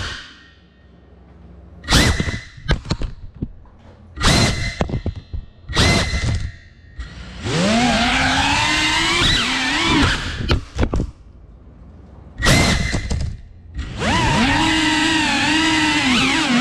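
Cinewhoop FPV drone's small brushless motors whining in short bursts as the throttle is punched and cut, the pitch sliding up and down with throttle. Several quick blips and longer pulls are broken by quieter gaps, and near the end the whine holds for a few seconds.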